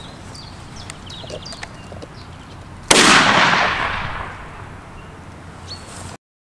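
A single blast from a Kral Arms pump-action shotgun firing a magnum shotshell, about three seconds in: a sharp crack with a long echoing tail that fades over a second or so. Near the end the sound cuts off suddenly.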